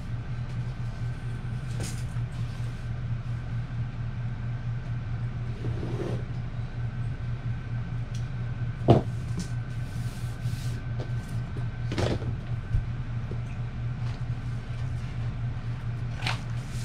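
A steady low hum runs under a few short knocks and rustles as a strip of peel-and-stick wallpaper, a tape measure and a wooden straightedge are handled on the floor. The sharpest knock comes about nine seconds in.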